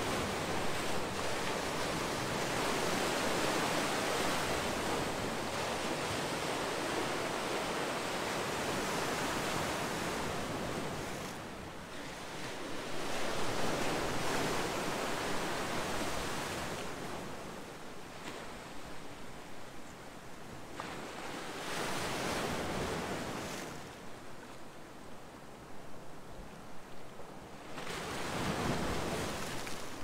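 Sea waves breaking and washing against a rocky shore of boulders, the surf swelling and easing in surges every few seconds.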